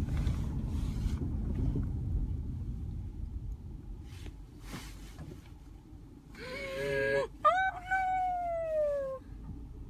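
Low vehicle rumble that fades over the first few seconds. About two-thirds through come two cries: a short, steady one, then a longer wail falling in pitch.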